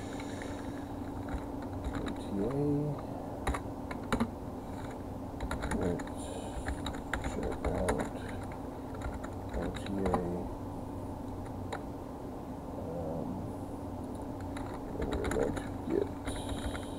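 Keystrokes on a computer keyboard, typed in short irregular runs, over a steady low hum.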